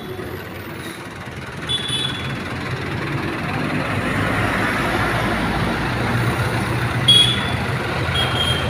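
Motor vehicle engine and road noise, steady and growing louder, with a few short high-pitched beeps and a sudden knock about seven seconds in.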